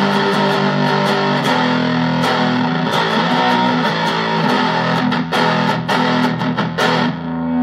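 Electric guitar (Ibanez Performer PF-200) through a Danelectro Cool Cat CF-1 fuzz pedal into a small Pignose amp, playing fuzzed chords that are repeatedly struck and sustain between strokes.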